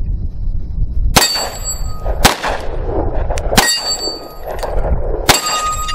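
Four 9mm shots from a Smith & Wesson Shield pistol, spaced a second or more apart, with steel plate targets ringing after the hits. Wind rumbles on the microphone throughout.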